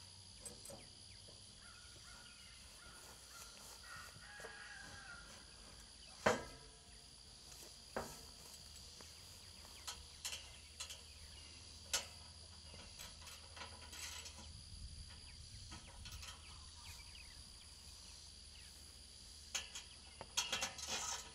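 Sharp metal knocks and clanks from the steel hay feeder frame and panels being handled and fitted together: single knocks every couple of seconds, the loudest about six seconds in, and a quick run of them near the end. A steady high insect sound runs underneath.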